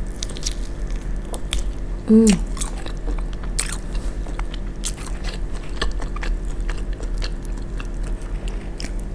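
Close-miked biting and chewing of a fried chicken wing coated in spicy barbecue sauce, with many small sharp mouth clicks. About two seconds in there is a short hum from the eater that falls in pitch.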